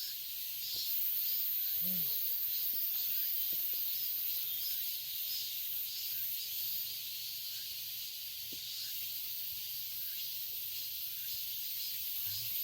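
Cicadas calling in a steady high hiss, with a softer pulsing call repeating about once a second.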